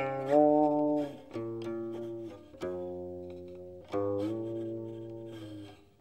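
Solo guqin, the seven-string Chinese zither, playing slow plucked notes that ring and fade. Twice the pitch of a sounding note slides upward as the left hand glides along the string.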